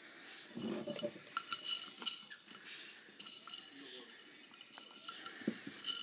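Clinking, tapping and scraping of a seed jar as a king parrot stuck inside it scrambles about, its beak and claws knocking against the jar and the seed. The small clicks come in quick irregular runs, with a few duller knocks.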